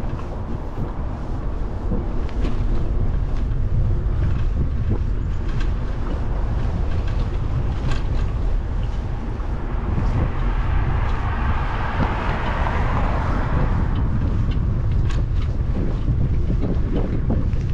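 Wind buffeting the microphone of a camera on a moving bicycle, a steady low rumble with scattered small rattles. About ten seconds in, a passing car's tyre noise swells and fades over a few seconds.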